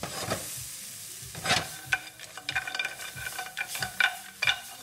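Seafood and chopped onions and tomatoes sizzling in a hot frying pan on a gas stove. The pan is shaken and tossed, giving a run of knocks and clatters of the clam shells and the pan, some with a short metallic ring, thickest in the second half.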